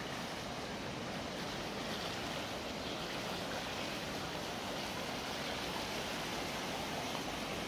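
Steady rushing of the Loire in flood, its fast, swollen water running past the bank.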